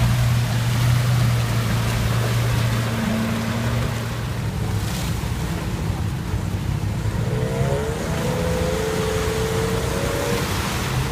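Off-road vehicle engines labouring through mud: first an open 4x4 buggy's engine running at steady revs, then a Hägglunds Bv206-type tracked carrier driving, with a higher whine that rises and falls in the second half.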